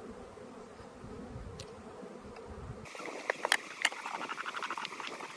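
Honeybees buzzing steadily around an open hive. From about three seconds in come a run of sharp clicks and light knocks as wooden hive frames and parts are handled.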